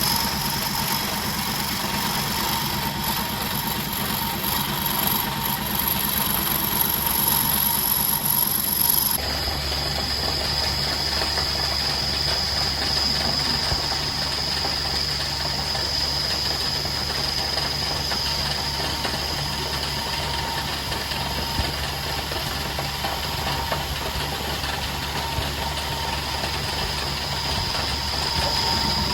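A small motor running steadily; about nine seconds in the sound changes abruptly to a different steady running sound with a deeper hum.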